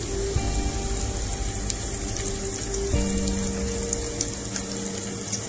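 Chopped garlic and green chilies sizzling in hot oil in a pan: a steady hiss with small pops. Soft background music with held notes plays underneath.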